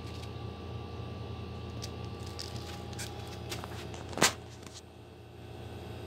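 Lakewood box fan running: a steady low motor hum with a whoosh of moving air. A few light clicks, then one sharp click about four seconds in.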